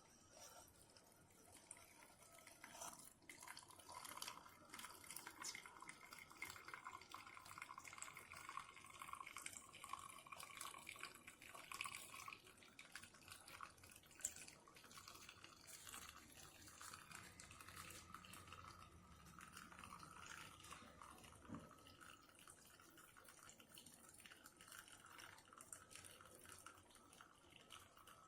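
Faint dripping and trickling of water from a Keurig single-serve coffee maker dispensing, with scattered small drip clicks.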